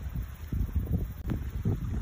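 Wind buffeting a phone's microphone in uneven, rumbling gusts.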